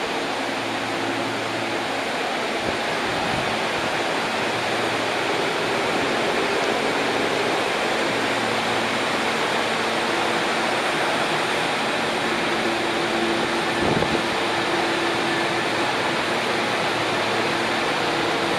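Nishitetsu 3000 series electric train rolling slowly along a station platform: a steady rumble of wheels and running gear with a faint hum underneath, and a single knock about fourteen seconds in.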